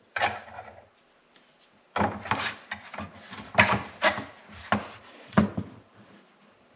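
Hard parts being handled and fitted: a series of short, irregular scrapes and clunks as a ski's tail fin and its hardware are rubbed and knocked into place.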